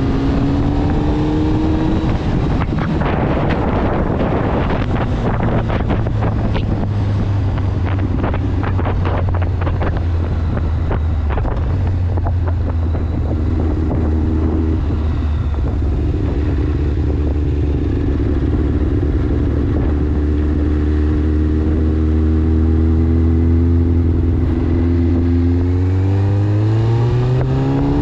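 Kawasaki ZX-9R's 900 cc inline-four engine running at steady cruising revs, heard through a helmet-mounted GoPro, with wind buffeting on the microphone through roughly the first ten seconds. Near the end the revs rise as the bike accelerates.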